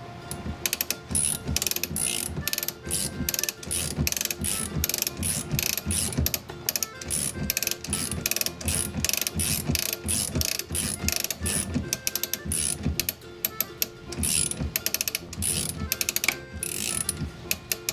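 A hand ratchet driving the ShortCut auto glass tool's winder, its pawl clicking rapidly in runs of short strokes as the string cuts through the urethane of a pickup's back glass. The clicking starts about a second in.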